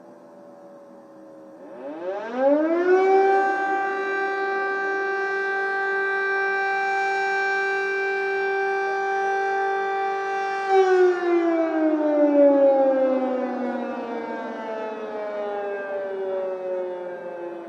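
Civil-defence air-raid siren sounding an attack alert. A falling tail at first, then about two seconds in it climbs quickly to a steady wail, holds for about nine seconds, and slowly winds down near the end.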